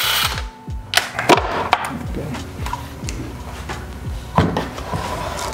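Metal engine parts knocking and clattering as they are handled and set down on a wooden workbench, in a series of sharp knocks, over background music with a beat.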